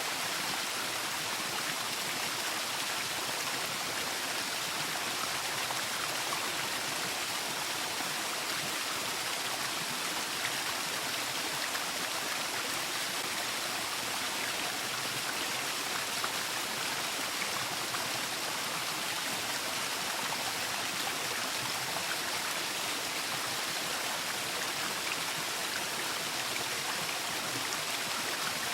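Waterfall: water falling and rushing in a steady, even hiss, with no breaks or changes.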